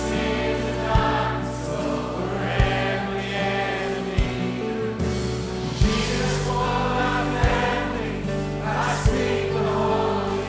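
Live worship band playing, with many voices singing together like a choir, over a low steady beat about every second and a half.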